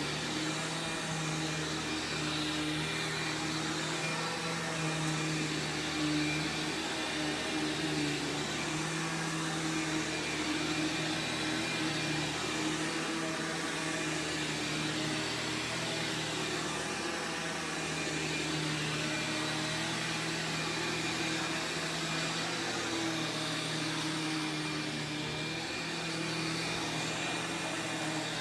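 Sharp Twin Energy EC-12TWT4 upright vacuum running steadily, its 12-amp two-stage motor giving a constant rushing drone with a steady whine.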